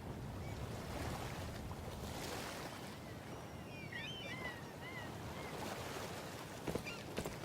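A steady rushing outdoor noise, like wind or surf, with a few short high chirps around the middle and a couple of sharp clicks near the end.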